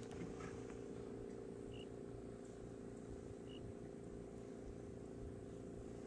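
Faint, steady low mechanical hum with two brief faint high chirps.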